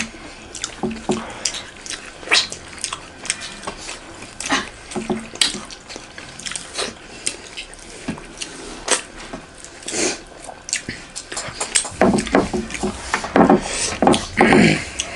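Close-miked wet eating sounds: lips smacking, chewing and fingers working through fish curry and rice, heard as a string of sharp wet clicks that grow louder and fuller about twelve seconds in.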